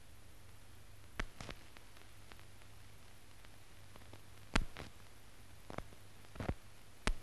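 The empty soundtrack of a silent newsreel: a faint steady hiss and low hum, broken by a handful of sharp clicks, the loudest about halfway through.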